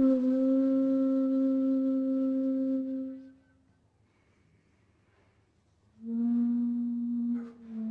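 Music of long, steady held notes: one note fades out about three seconds in, and after a pause of nearly three seconds a lower note begins.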